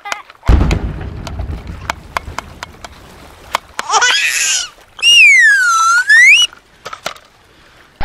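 A loud rush of noise with a low rumble, then two short cartoon sound effects: a brief warbling chirp about four seconds in, then a loud whistle that swoops down in pitch and back up.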